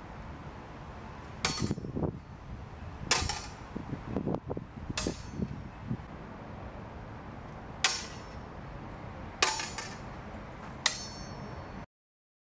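Steel longswords clashing blade on blade: six sharp ringing strikes, in two groups of three, with dull thumps among the first few. The sound cuts off about a second before the end.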